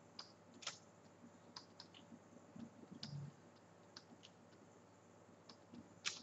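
Faint, irregular computer mouse clicks, about a dozen, against quiet room tone, the sharpest one near the end.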